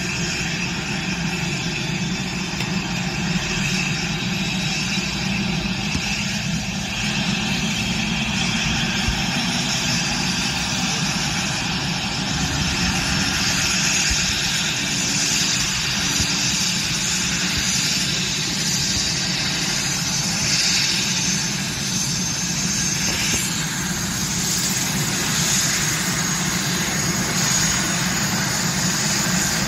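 Airbus H145 helicopter's twin turboshaft engines running steadily on the ground before lift-off. A thin high whine comes in about two-thirds of the way through.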